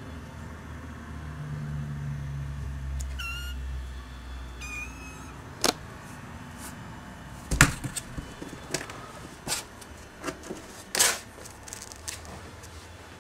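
A kitten gives two short, high meows a few seconds in. Then comes a run of sharp knocks and thumps, the loudest about halfway through, as it scrambles in and out of a cardboard box.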